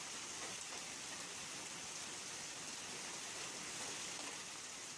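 A steady, even hiss of outdoor noise with no distinct events, sounding like rain.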